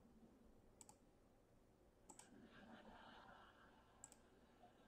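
Near silence with a few faint sharp clicks, spaced about one to two seconds apart, and a faint brief rustle about halfway through.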